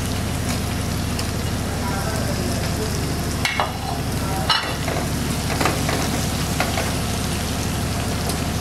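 Cubed onion, green capsicum and dried red chillies sizzling steadily in hot oil with chopped garlic in a nonstick wok, stirred with a silicone spatula, with a couple of short knocks in the middle. A steady low hum runs underneath.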